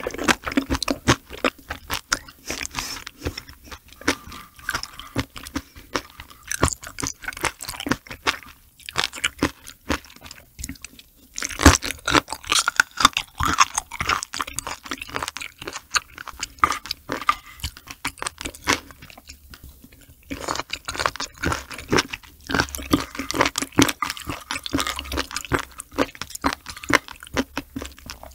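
Close-miked chewing of raw sea cucumber with its roe and innards: many quick, wet clicking mouth sounds, with a few short pauses about nine, eleven and twenty seconds in.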